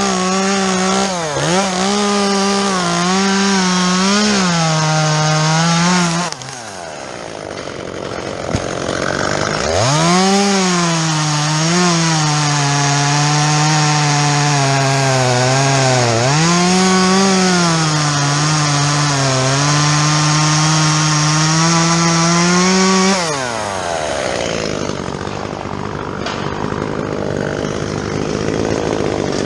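Gas chainsaw cutting through fir wood, with a chain the owner says was not very sharp. The engine pitch repeatedly sags and recovers under load. The saw cuts out about six seconds in, revs back up around ten seconds, cuts again until about 23 seconds, and then drops away.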